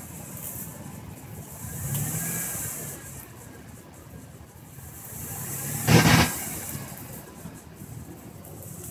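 Off-road Jeep engine running, swelling about two seconds in, with a short loud burst of noise about six seconds in.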